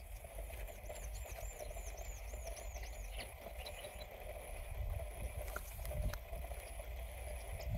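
Faint outdoor rural field ambience: steady high and mid-pitched background calling, with a run of about eight quick high chirps about a second in. Low rustling and handling noise rises near the end.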